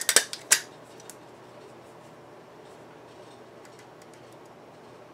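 Hand hole-punch pliers snapping through the edge of a subwoofer voice-coil former: a quick cluster of three or four sharp clicks at the start and one faint click about a second in. The holes are punched so that glue can get through and grip the coil better.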